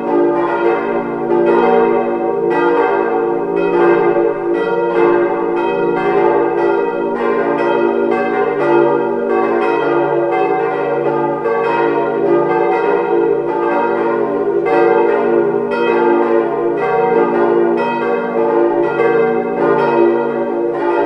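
Four hard-cast iron church bells cast by Weule in 1949, tuned d', f', g' and b-flat', swinging together in a peal, their strokes falling several times a second over a continuous hum. The strike notes are noticeably out of tune with one another, a sign of ageing iron bells that the owner expects to fail before long.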